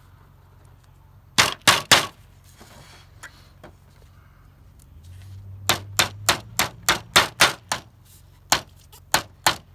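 Hammer tapping small finishing nails into the wooden top bar of a Langstroth beehive frame. Three quick strikes, then after a pause a steady run of about a dozen blows, roughly three a second, in the second half.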